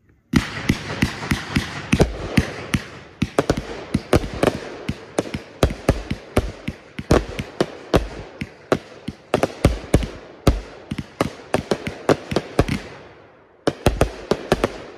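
A Raccoon Pro Line 42-shot fan cake firework (blue tails to brocade crowns) firing a rapid volley of shots, many sharp bangs in quick succession over a steady hiss. The volley begins about a third of a second in and thins out near the end. After a brief lull a second burst of shots starts.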